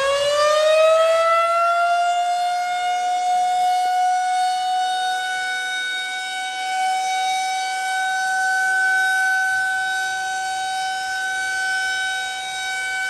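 Tornado warning siren sounding a long steady tone, its pitch finishing its climb in the first couple of seconds and then holding level, rising and falling slightly in loudness.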